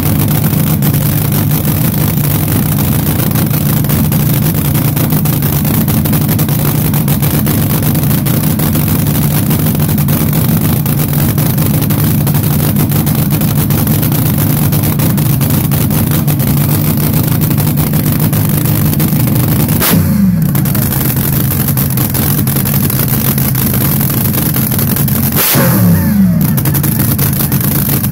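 Supercharged V8 of a front-engine dragster idling loudly and steadily, blipped briefly to higher revs about twenty seconds in and again a few seconds later.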